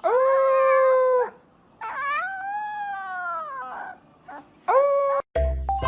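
A dog howling: three howls, a steady one of about a second, then a longer one that rises and falls in pitch, then a short one. Music with a jingling melody cuts in near the end.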